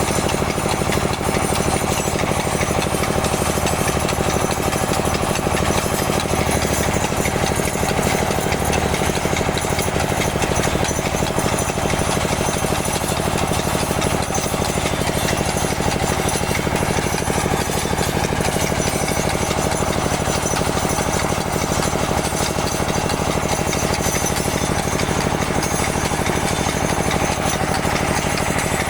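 Small soil-testing drill machine running steadily under load, a fast, even pulsing chatter with no change in pace or level.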